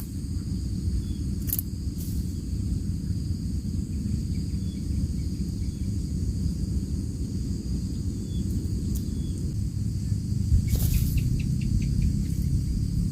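Steady high-pitched chorus of crickets over a loud low rumbling noise, with a few sharp clicks and a short quick run of ticks near the end.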